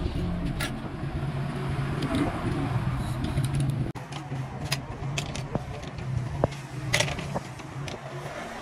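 Steady low engine-like hum with scattered light clicks and ticks from a badminton racket stringing machine as nylon string is threaded through the frame and clamped; one sharper click about seven seconds in.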